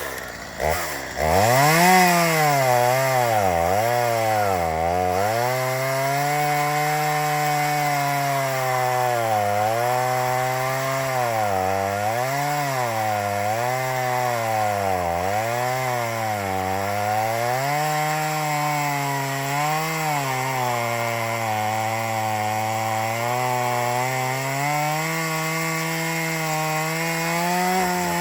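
Two-stroke gas chainsaw blipped a couple of times near the start, then cutting through a log at full throttle. The engine pitch bogs down and recovers again and again as the chain bites into the wood, and it rises as the load eases near the end.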